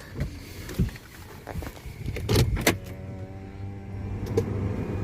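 A few sharp knocks and clunks, then from about three seconds in a car engine running with a steady hum.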